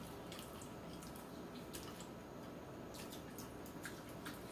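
Faint wet chewing and scattered mouth clicks of a person eating barbecue chicken.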